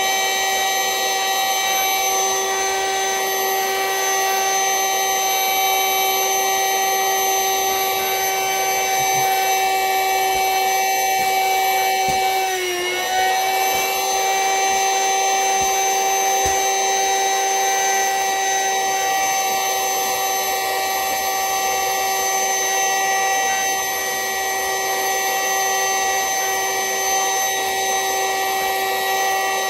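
A small vacuum cleaner runs with a steady high whine while drawing the air out of a vacuum storage bag of plush toys. About thirteen seconds in, its pitch dips briefly as the load changes, then comes back up.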